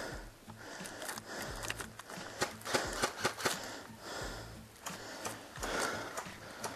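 Heavy breathing and footsteps of an airsoft player on the move, close to a head-mounted camera, with the breaths swelling and fading about every second and a half. A quick run of sharp clicks or snaps about halfway through.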